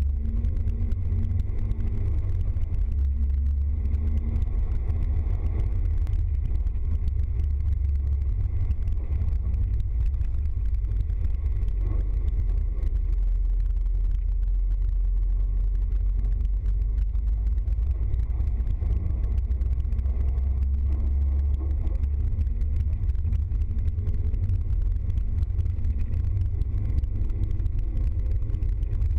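Steady low drone of a vehicle's engine and tyres on a wet road, heard from inside the cab while driving.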